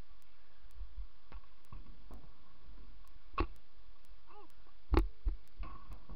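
A few sharp knocks on a skatepark ramp, the loudest about five seconds in, over a steady hiss. Just before the loudest knock comes a short pitched sound that rises and falls.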